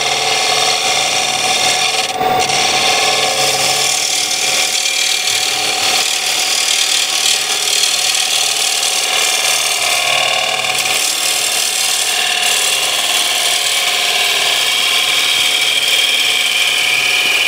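Bowl gouge cutting cherry wood spinning on a lathe: a steady, continuous scraping hiss of a push cut or shear cut smoothing the bowl's shape.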